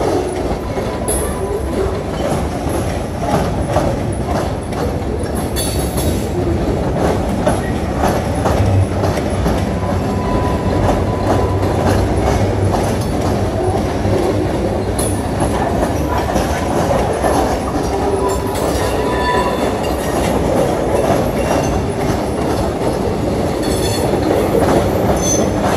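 Freight train of covered hopper cars and tank cars rolling past, wheels clattering over the rail joints, with brief wheel squeals now and then.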